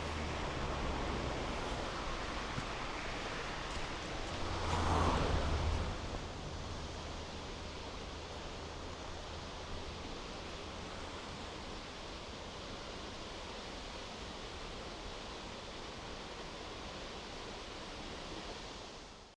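Mountain stream water rushing steadily over rocks. A brief louder swell of noise comes about five seconds in, and the sound cuts off at the end.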